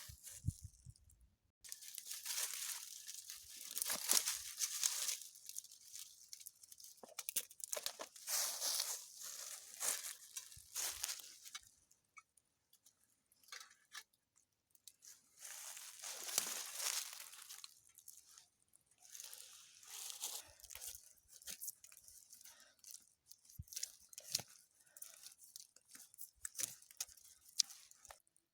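Dry leaves, birch bark and thin twigs being handled, crunched, torn and snapped in irregular spells of crackling with sharp snaps and short pauses, as tinder is gathered and packed for a fire.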